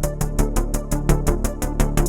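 Electronic background music with a steady fast beat of ticking hi-hats over synth bass.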